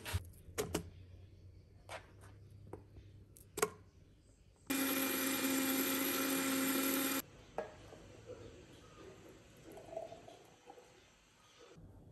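Countertop blender motor running at a steady pitch for about two and a half seconds while blending a smoothie, then cutting off suddenly. A few light knocks and clicks come before it, about a second apart.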